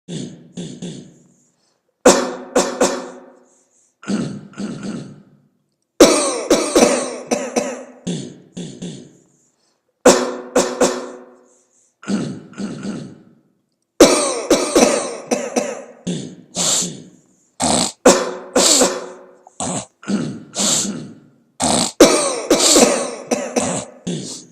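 A person coughing and hacking in rhythmic groups about every two seconds, with sudden cut-offs to silence between the groups. Past the middle the coughs come faster and closer together, like a beatboxed coughing rhythm.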